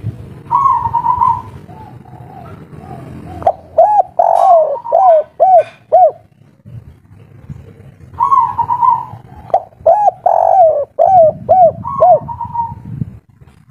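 Spotted dove cooing in two phrases. Each phrase opens with a rolling coo and runs into a string of short coos that each rise and fall in pitch.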